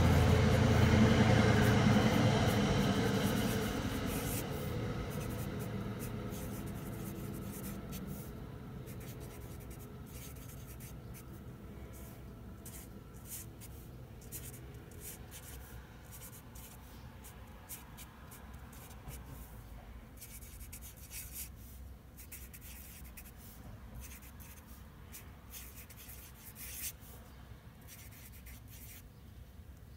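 Sharpie felt-tip marker scratching across paper in short, quick strokes of cursive handwriting. At the start a low, steady sound fades away over the first several seconds.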